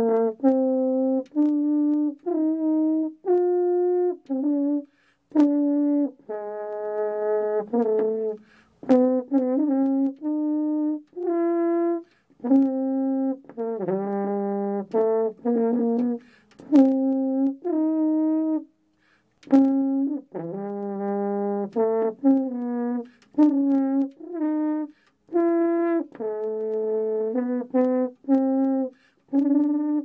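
French horn played solo in its middle register: a string of separate notes in short phrases, with brief breaks between them.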